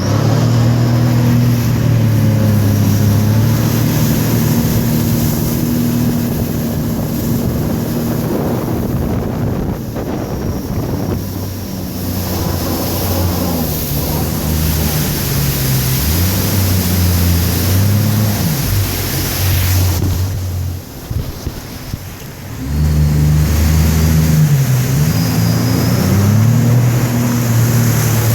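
Jet ski engine running on the water, its pitch rising and falling with the throttle, over the hiss of water and wind on the microphone. About three-quarters of the way through the engine eases off briefly, then revs back up.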